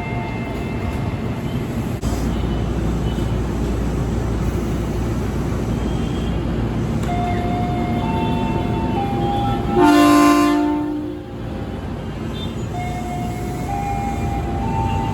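A train running through the station with a steady rumble and thin whining tones that step in pitch. A loud horn blast of a little over a second sounds about two-thirds of the way in.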